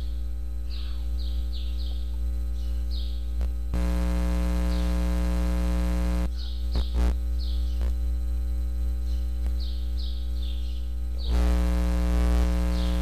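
Steady electrical mains hum with a buzz that swells twice, loudest a few seconds in and again near the end. Short high chirps come in small clusters throughout, with a few faint clicks in the middle.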